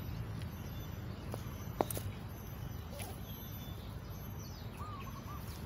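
Rural outdoor ambience: a steady low rumble with a short wavering bird call near the end. A single sharp click about two seconds in is the loudest sound.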